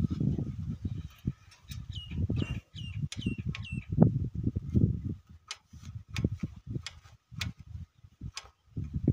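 Cloth scuffing and rubbing over the metal gear housing of a mini power tiller in irregular strokes, as oily dirt is wiped away. A bird chirps a quick run of falling notes about two to three seconds in, and a few sharp ticks come later.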